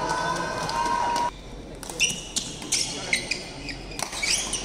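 Badminton doubles rally: sharp racket strikes on the shuttlecock and short squeaks of shoes on the wooden court. In the first second or so a steady held tone sounds, then cuts off abruptly.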